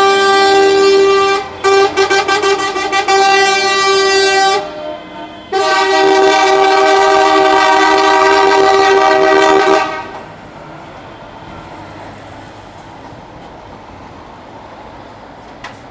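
Truck air horns sounding: a long blast, then a quick run of short stuttering toots about two seconds in, then a second long blast of about four seconds that cuts off near the middle. After that only the quieter steady noise of trucks driving past remains.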